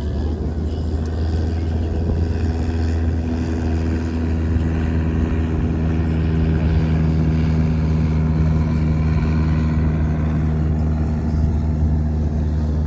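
An aircraft flying overhead, a steady engine drone with a deep rumble, its pitched hum coming in about a second and a half in and holding steady.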